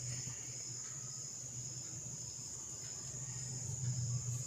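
Steady, high-pitched insect chirring in the background, with a faint low hum underneath.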